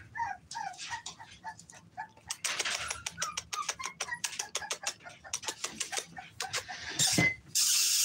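American bully puppies playing rough: small high squeaks and yips at first, then a quick run of clicks and scuffling as they tussle, with a loud rustling burst near the end.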